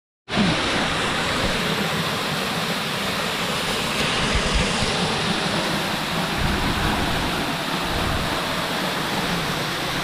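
Waterfall falling into a shallow pool: a steady, even rush of water.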